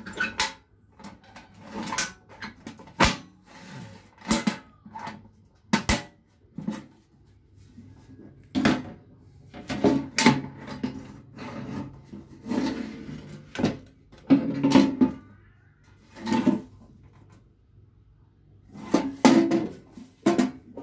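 Red painted metal toolbox being handled: its clasp latch clicks, and the box body knocks and clatters in a string of separate clanks as it is turned over and set down.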